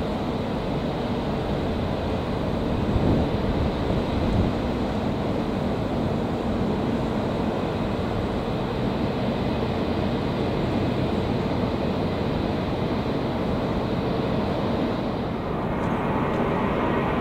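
Jet engines of a departing four-engine airliner climbing away, a steady rumble with two brief bumps about three and four seconds in. Near the end it gives way to the louder, hissier takeoff noise of a Boeing 747-400 lifting off.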